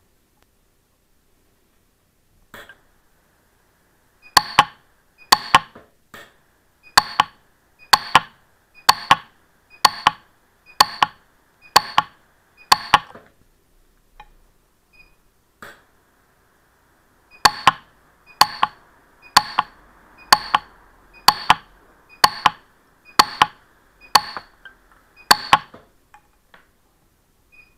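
PUK 3S micro pulse-arc welder firing on an 18ct gold ring, building up gold on its rubover setting and claws: sharp snaps about one a second, two runs of about nine with a pause of a few seconds between, and a faint hiss under each run.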